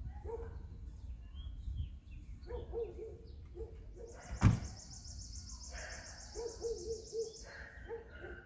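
Wild birds singing and calling, among them a high, fast trill lasting several seconds. A single sharp knock comes about halfway through.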